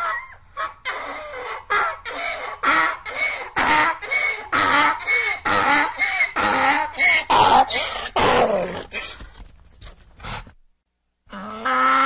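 Donkey braying: a rhythmic run of hee-haw cries, about two a second, alternating high wheezing in-breaths with lower out-breaths, fading out about nine seconds in.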